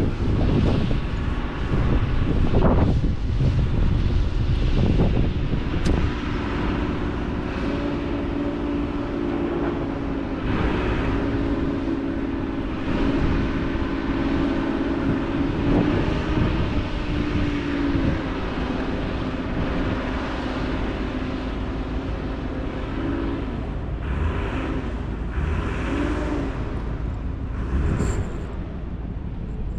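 Wind rumbling on the microphone, with a low steady mechanical hum that comes in about a quarter of the way through, wavers in pitch and fades in the second half.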